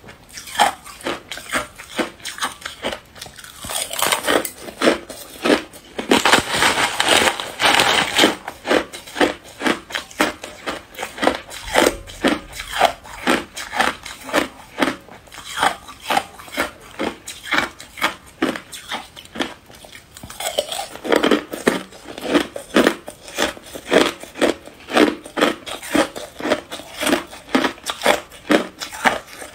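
Hard clear ice being bitten and chewed: a steady run of crisp cracking crunches, about two to three a second, with a denser, louder stretch of crunching about six to eight seconds in.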